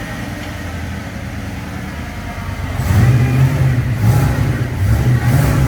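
Muscle car engine running at a steady idle, then blipped through several quick revs from about three seconds in.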